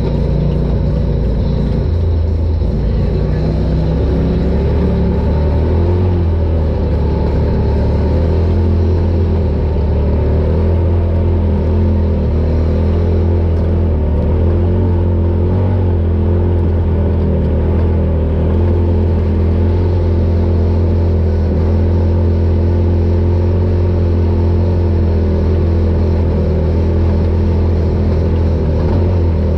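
Polaris RZR Pro XP side-by-side's turbocharged twin-cylinder engine running steadily while driving off-road, a constant low drone.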